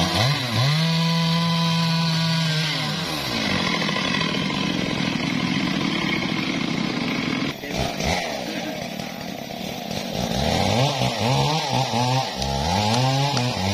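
Stihl chainsaw cutting through a mahogany log at high revs, then dropping back. Later the saw is revved up and down several times.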